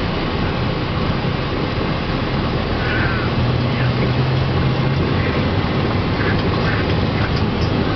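Minibus running on the road: a steady engine drone with road noise, and a few short squeaks over it.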